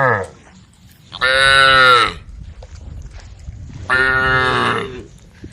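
Cattle mooing: the falling tail of one moo right at the start, then two full moos of about a second each, one beginning about a second in and the other about four seconds in.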